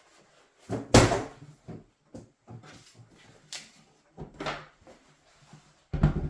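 A box being handled: several separate knocks and scrapes, the loudest about a second in and another near the end.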